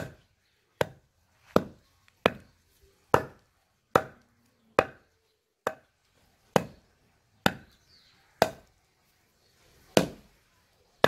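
A thick wooden stick striking dry clods of field soil over and over to break them up, about one blow a second, a dozen blows in all.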